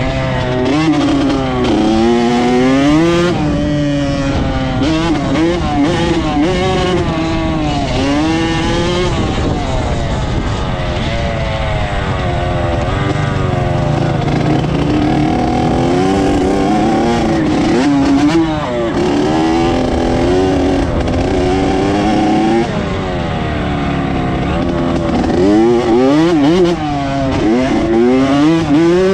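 Dirt bike engine revving hard, its pitch climbing and dropping again and again as the bike accelerates and eases off.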